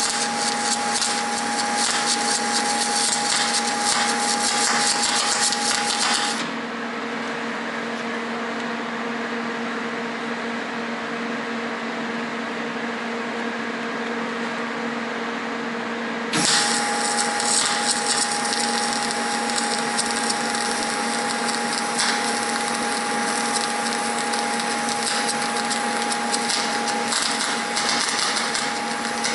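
MIG welder's arc crackling and hissing in two runs while welding up steel: the first run stops about six seconds in, leaving only a steady hum, and the second starts a little past halfway and runs almost to the end. A thin steady whine sounds under the crackle only while the arc is lit.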